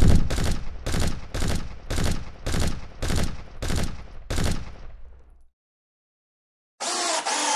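Rifle gunfire: about ten shots at an even pace of roughly two a second, each trailing off in a short echo, stopping after about five seconds. Near the end a different, steady noise starts.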